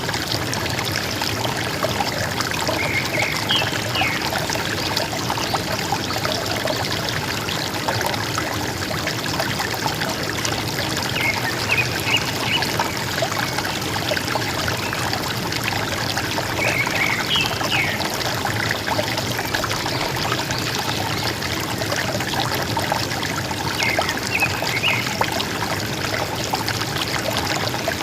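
River water flowing and gurgling steadily, with a forest bird giving a short burst of calls four times, several seconds apart.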